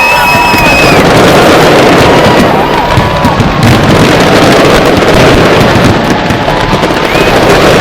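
A fireworks display going off in a continuous barrage of bangs and crackles, loud enough to overload the microphone.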